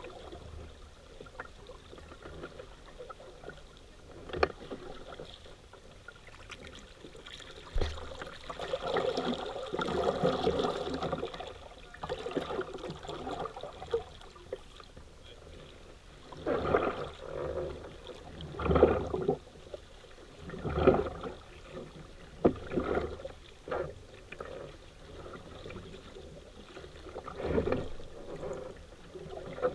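Paddle strokes in river water: a longer swishing stretch about a third of the way in, then a stroke about every two seconds, with a few sharp knocks.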